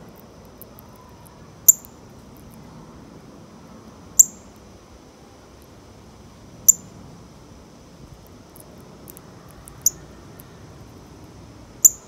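Northern cardinal giving sharp, high chip calls, five in all, about one every two to three seconds.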